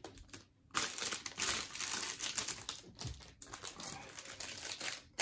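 Hands sifting through a pile of loose plastic Lego bricks on a tabletop while searching for a piece: a dense, continuous clicking and rattling of small pieces, with a plastic parts bag crinkling as it is handled.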